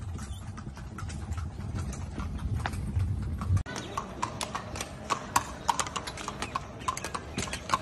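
Horse hooves clip-clopping as a pair of carriage horses walk on hard paving. For the first half there is a low rumble with only faint hoof clicks, heard from the moving carriage; after a sudden cut the hoof strikes come crisp and close, several a second.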